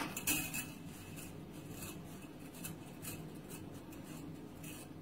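Light clicks, scrapes and rustles as dry pasta is put into a pot of boiling water, over a low steady hum.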